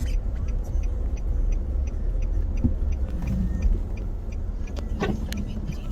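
Car cabin noise while driving slowly through a snowstorm: a steady low rumble of the car in motion, with a light regular ticking about four times a second.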